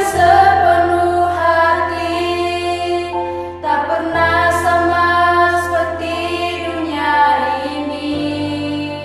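A child singing a worship song in long, held notes over an accompaniment of sustained low notes that change about every four seconds.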